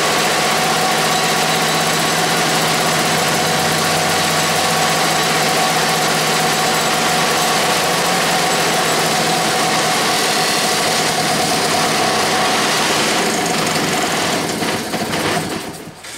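Antique two-stroke engine running steadily on a makeshift, non-adjustable replacement carburetor. About three seconds before the end it starts to stumble into separate firing strokes, then slows and stops.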